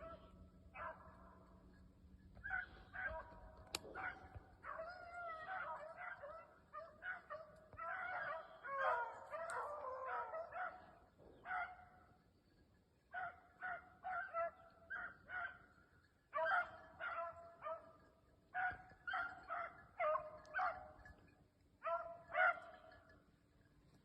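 Pack of hunting beagles baying on a rabbit's scent: runs of short, quick barks. Several dogs overlap in a continuous chorus from about five to eleven seconds in.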